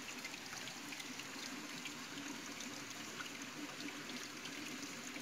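Hot spring water trickling out of a rocky riverbank into the river: a steady, quiet trickle with many small drips and splashes.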